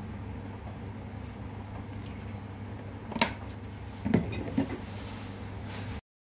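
A few light clinks of kitchenware, about three and four seconds in, over a steady low hum. The sound cuts off suddenly near the end.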